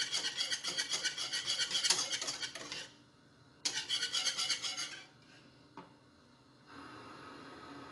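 A wire balloon whisk beating a milky liquid in a coated saucepan, scraping rapidly and rhythmically against the pan in two spells with a short pause between. It is quieter after about five seconds, with a faint steady hum near the end.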